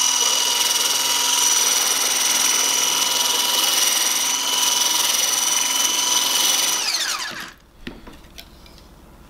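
Litchi 4-in-1 hand mixer running on high speed, its whisk attachment beating a pitcher of Jell-O mix: a steady, high-pitched motor whine. About seven seconds in it is switched off and winds down with a falling pitch, followed by a few light taps.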